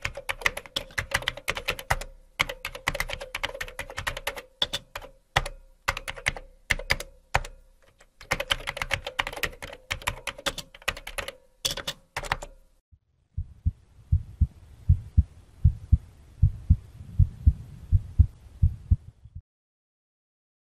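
Computer keyboard typing sound effect: quick runs of key clicks for about twelve seconds, then a heartbeat sound effect of low, paired thumps for about six seconds before it goes quiet.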